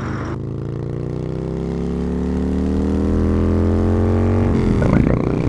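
Motorcycle engine heard from the rider's seat, accelerating, its pitch and loudness climbing steadily for about four seconds, then breaking off near the end.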